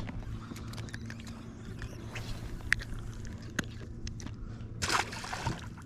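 Scattered small clicks and scrapes of handling on a fishing boat, over a steady low hum, with a short rush of noise about five seconds in.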